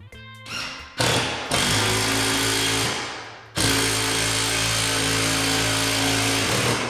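Power drill running in two long bursts, the first about two seconds and trailing off, the second about three seconds and steady, each a loud motor whine with a rushing hiss.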